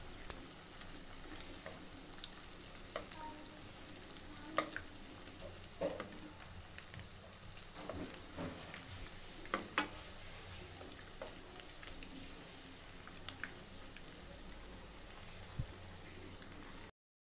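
Oil sizzling steadily as poha-and-potato rolls deep-fry in a kadhai. A perforated steel slotted spoon turning the rolls makes a few light clicks against the pan. The sound cuts out briefly near the end.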